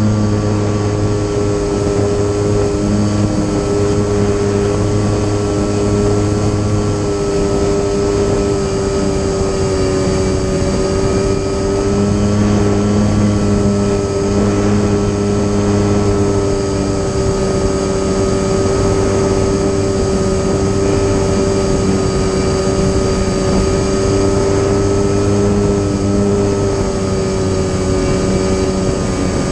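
Electric motor and propeller of a radio-controlled Korda Dethermalizer model airplane running steadily in flight, heard from a camera mounted on the plane: a steady whine over a rushing noise. A lower buzz drops out about seven seconds in and comes and goes after that.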